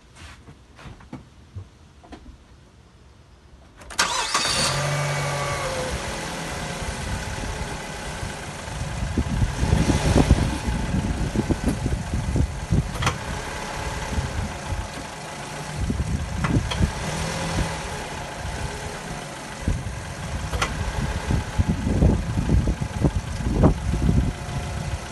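Mazda3 2.3 L four-cylinder engine cranking and catching about four seconds in, then idling, with several sharp knocks later on. The knocks fit the clunk the car makes when the automatic is shifted from drive to reverse.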